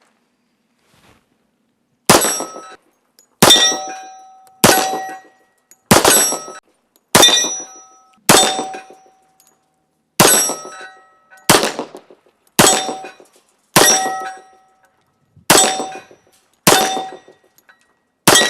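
Remington R1 double-stack 1911 pistol fired in a steady string of thirteen shots, about one a second, without a reload. Each shot is followed by a metallic ring.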